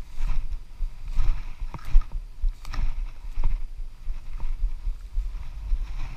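Uneven low rumble of wind buffeting and handling noise on a body-worn action camera's microphone, with a few sharp knocks and rustles between about one and three and a half seconds in.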